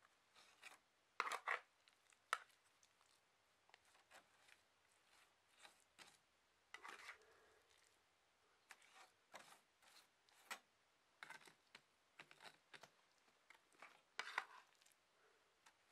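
Small trowel scraping up and pressing wet hemp-lime mix into a hemp-block wall: faint, irregular short scrapes and dabs, with a louder cluster about a second in and another near the end.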